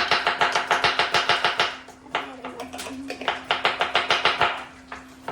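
A kitchen utensil striking in fast, even strokes, about eight a second, in two runs with a short pause between, each stroke with a slight ring, as batter ingredients are worked by hand.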